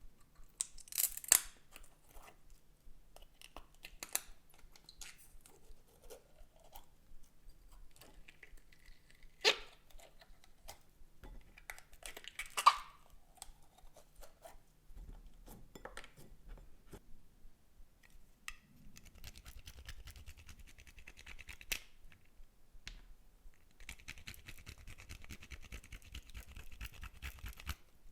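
Slime being handled with things mixed into it: scattered sticky clicks and taps with a few sharper snaps, then, from about two-thirds through, a dense run of fine crackling as the slime is kneaded.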